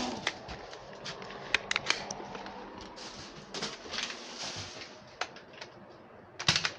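Scattered small plastic clicks and rattles of a toy dart gun being handled and loaded, with a louder snap about six and a half seconds in.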